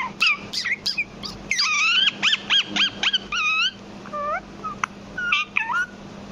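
Indian ringneck parrot calling: a quick string of short, sharp chirps and squawks, then from about a second and a half in a rapid run of arched, whistle-like notes, about four a second, followed by scattered single calls.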